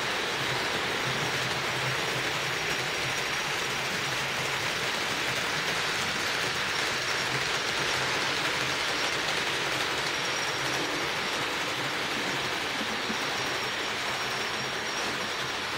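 HO-scale model trains running on the layout's track: a steady whirring of small electric motors and wheels on rail, with a faint high whine that comes and goes.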